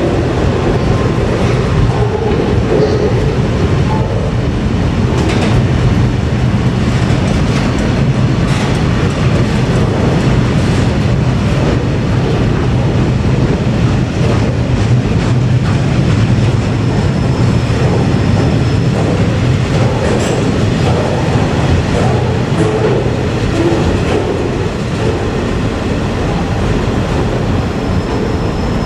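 Freight wagons loaded with steel coils rolling past at steady speed: a continuous rumble of wheels on rail with intermittent clicks as the wheels cross the rail joints.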